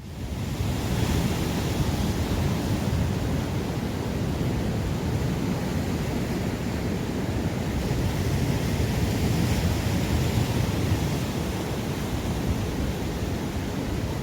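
Steady sea surf on a rocky shore mixed with wind buffeting the microphone, a continuous noisy rush that cuts in suddenly at the start.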